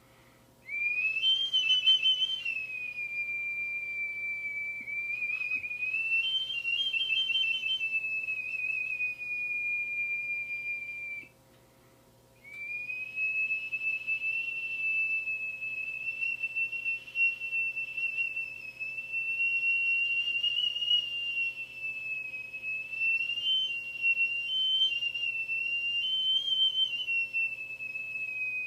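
Ishibue (iwabue), a Japanese stone whistle made from a natural stone bored through by shellfish, blown in two long, high-pitched, wavering whistle notes. The first swoops up at the start. After a pause of about a second, the second note is held with small rises and falls in pitch.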